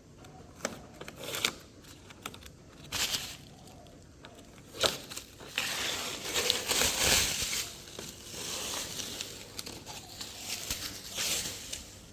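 Masking tape and tape rope being peeled off a freshly painted car body and balled up: irregular rustling and ripping, heaviest for a couple of seconds about halfway through.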